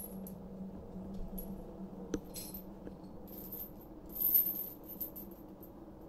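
Steel chain of handcuffs and leg irons clinking and rattling in several short bursts as the wearer moves, the loudest rattle a little past the middle.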